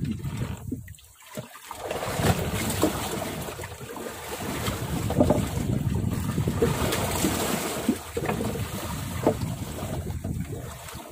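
Wind buffeting the microphone over waves splashing around a small open fishing boat, with a few faint knocks. A brief lull comes about a second in, then the wind and water noise picks up again.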